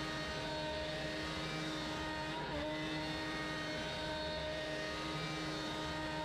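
Shapeoko CNC router's spindle running steadily with a high whine while its end mill cuts a pocket into a wooden block; the pitch dips briefly about two and a half seconds in.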